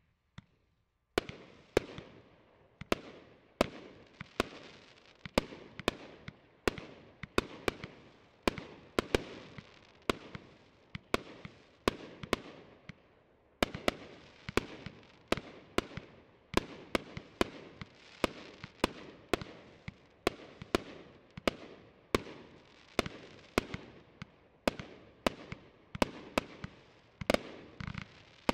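TXB642 Colt fireworks battery (cake) firing shot after shot: a sharp bang about every three-quarters of a second, each trailing off. It starts about a second in, pauses briefly about halfway, and the shots come quicker near the end.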